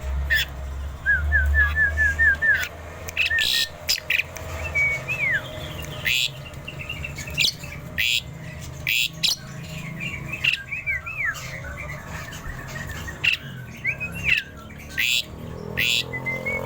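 Asian pied starling (jalak suren) singing: clear whistled notes that slide up and down, with a quick run of repeated notes near the start, mixed with short harsh, rasping calls throughout.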